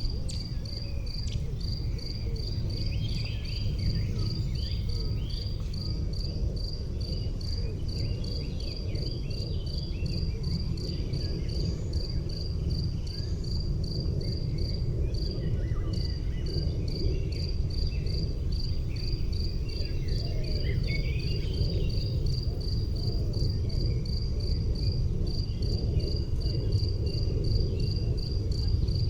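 A cricket chirping evenly, about twice a second, with a high chirp, over a steady low rumble, with scattered faint short calls higher up.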